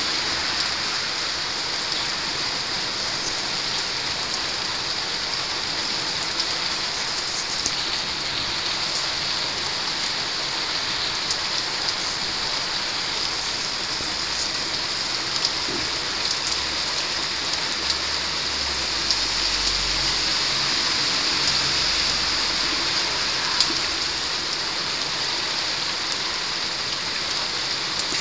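Heavy rain falling steadily on roofs, a constant hiss with scattered drip ticks. A low rumble swells for a few seconds about two-thirds of the way through.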